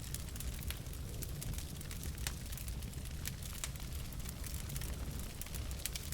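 Wood fire burning in a fireplace: logs crackling and popping in irregular sharp snaps over a steady low rumble of the flames.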